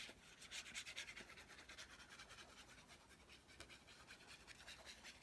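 Faint rustling and rubbing of cardstock being handled, in many quick, light scratchy strokes.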